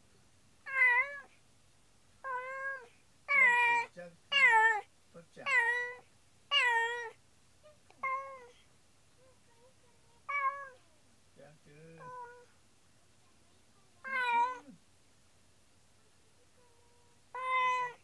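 Domestic cat meowing repeatedly, about eleven calls: a quick run of meows in the first seven seconds, then a few more spaced several seconds apart.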